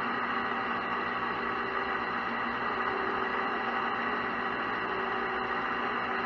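Metal lathe turning slowly while a scissor knurler's two wheels press into a spinning copper bar, rolling a knurl into it: a steady sound with several held tones over a rough hiss.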